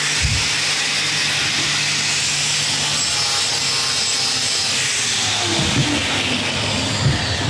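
Angle grinder with an abrasive disc running and grinding on the metal tubing of a motorcycle frame loop: a steady, high-pitched grinding hiss over the motor's hum, with a couple of knocks near the end.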